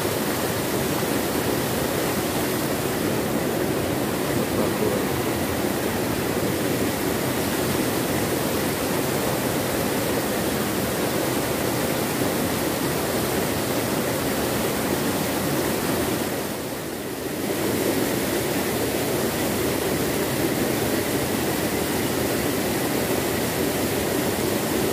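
Small river waterfall pouring over a low rocky drop into a pool, a steady rush of water that dips briefly about two-thirds of the way through.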